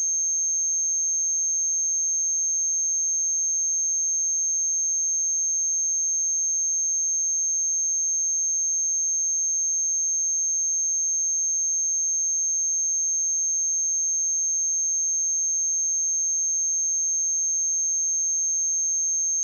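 A pure 6383 Hz sine-wave test tone, a single steady high-pitched whistle held at constant pitch and level.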